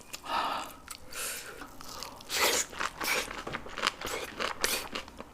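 A person biting into and chewing a crunchy ssam wrap filled with shishito peppers, a run of crunches about two a second.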